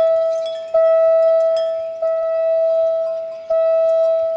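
Railway level-crossing warning bell striking at an even pace, about once every second and a quarter, each single clear ring dying away before the next; three strikes fall within this stretch. The ringing signals that the crossing is closed for an approaching train.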